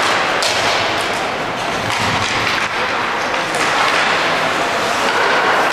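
Steady crowd din in an ice hockey arena, with brief sharper hisses now and then.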